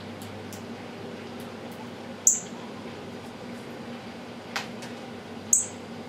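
Northern cardinal giving two sharp, high chip notes, about two seconds in and again near the end, with a softer click between them, over a steady low hum.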